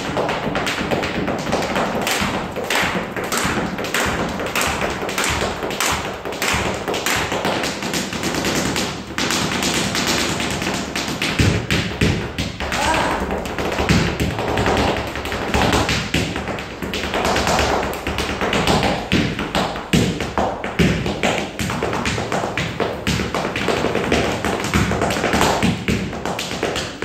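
Flamenco zapateado: a dancer's shoes striking the stage floor in rapid, rhythmic heel-and-toe taps.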